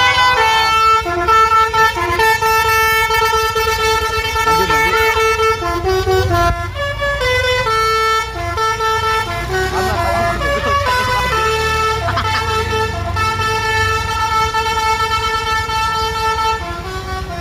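Bus 'telolet' Basuri multi-tone air horn playing a melody of held notes that step from pitch to pitch, in phrases with a short break about six seconds in, over the low rumble of the bus engine.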